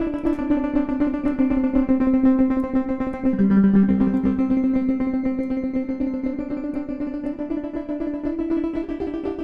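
Ambient, plucky synthesizer chords from a software modular patch built on three wavetable oscillators. The held chord tones shift every couple of seconds, with a new low note coming in about three and a half seconds in, and the sound slowly gets quieter toward the end.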